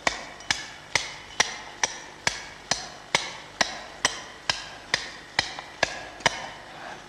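Steady, rapid blows of a hand tool, about two strikes a second, each with a short metallic ring, stopping about six seconds in.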